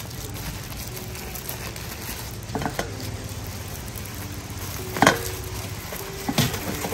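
Banana leaf and plastic food-prep gloves rustling and crinkling as a sticky-rice banana parcel is folded and pressed into its leaf wrapping, with a few sharp crackles, the loudest about five seconds in.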